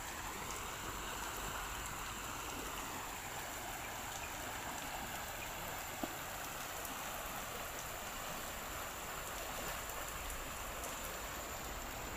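A shallow river rushing steadily over rocks and riffles, with a thin steady high tone above the water noise.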